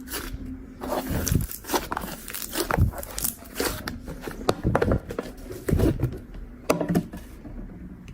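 Slime being squeezed and pressed by hand: an irregular run of wet squelches, sharp clicky pops and soft thuds.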